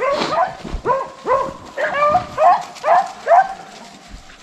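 Rabbit-hunting hounds baying on a rabbit's track: a run of short, pitched barks about two a second, fading out near the end.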